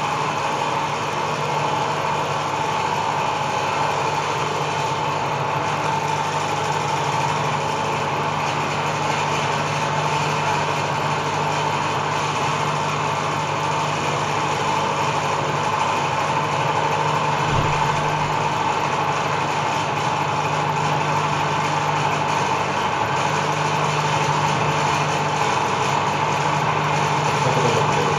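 Microwave oven running: a steady hum with fan noise, unchanging throughout.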